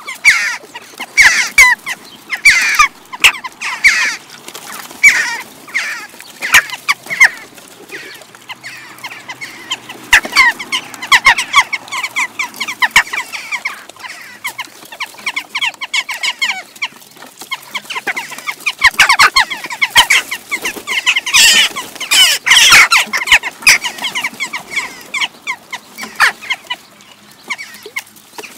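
A flock of western jackdaws calling over one another in short, rapid, overlapping calls. The calling is busiest about ten to thirteen seconds in and again about nineteen to twenty-three seconds in.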